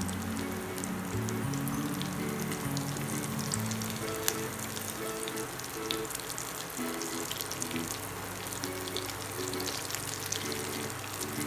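Vegetable kababs frying in hot oil in a pan: a steady sizzle with fine crackling as the patties are cooked on their second side, and one sharp click about four seconds in.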